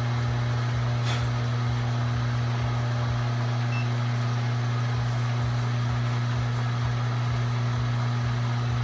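Milling machine running steadily with an unchanging low motor hum. One light metallic clink about a second in.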